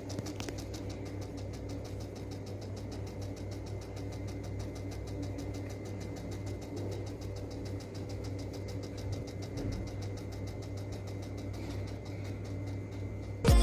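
Small DC hobby motor running steadily on a battery, a low even hum with a fast buzzing ripple.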